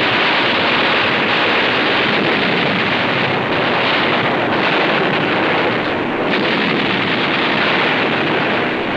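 Loud, steady rushing roar of a wartime film's battle-noise track for landing craft crossing open water under fire, with no distinct bangs standing out.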